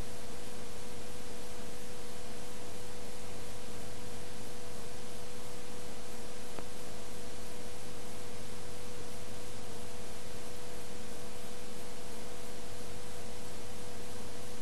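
Steady hiss with a constant electrical hum tone underneath: the noise of the recording chain, with no other sound. One faint click about halfway through.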